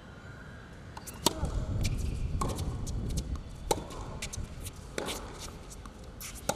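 Tennis rally on a hard court: sharp racket-on-ball hits about every second and a quarter, with fainter ball bounces between them.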